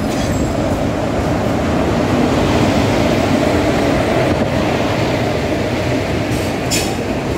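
Indian Railways electric locomotive and its passenger coaches rolling past close by, a steady loud rumble of wheels on rails that swells a little a few seconds in.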